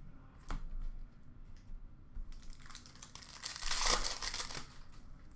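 Trading cards being handled with a few light clicks, then a couple of seconds of crinkling from a card pack wrapper being torn open and crumpled, loudest a little before the four-second mark.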